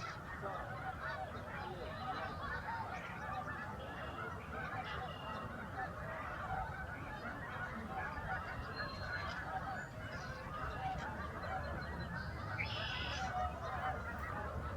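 A huge flock of wild geese honking all at once, a dense unbroken din of overlapping calls. A few higher, clearer calls stand out, most strongly near the end.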